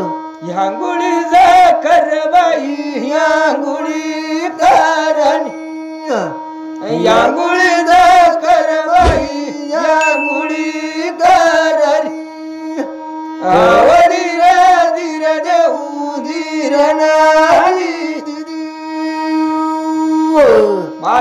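Adivasi folk music: a steady drone held under a wavering, ornamented melody line that comes in phrases, with occasional sharp percussive strokes.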